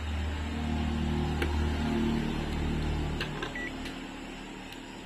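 Small electric motor humming steadily for about three seconds, then fading out, with a short high beep near the end.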